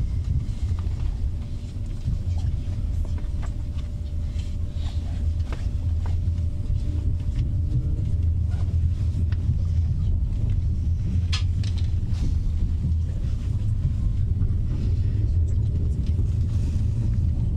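Steady low rumble inside the passenger cabin of an Italo AGV (ETR 575) high-speed train rolling at low speed as it pulls into its terminus station, with a faint steady hum and scattered light clicks.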